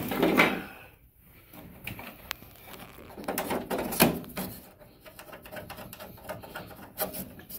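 Clicks, knocks and scraping of a black plastic part against the stainless steel front panel of a Rancilio Classe 5 espresso machine as it is worked back and forth in its slot, held back by a thumb screw. The loudest handling noise comes right at the start, with a cluster of clicks about four seconds in and more near the end.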